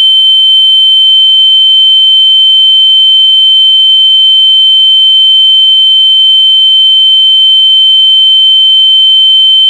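A loud, steady, high-pitched electronic tone held at one pitch without a break, like a test beep.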